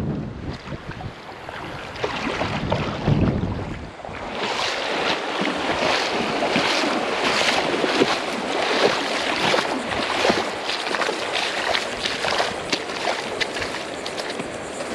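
Wind buffeting the microphone in low gusts, then ocean surf washing up the beach as a steady hiss with many short crackles from about four seconds in.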